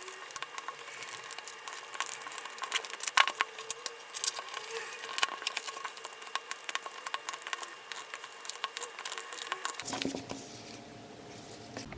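Rapid, irregular light clicks and taps of small objects being handled. About ten seconds in the background changes and a deeper hum comes in.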